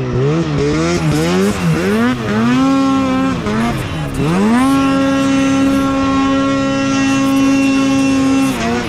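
Snowmobile engine revving up and down in quick throttle bursts, then, about four seconds in, held at a steady high rev for several seconds before easing off near the end, as the sled is worked out of a tight spot and up a slope under load.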